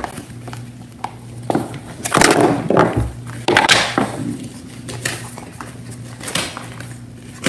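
Paper and plastic packaging of a rolled-up mailer crinkling and rustling as it is handled and opened, in several irregular bursts, over a low steady hum.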